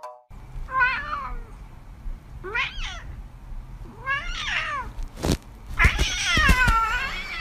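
A cat meowing: three short meows, then a longer, wavering meow near the end. A sharp thump comes about five seconds in.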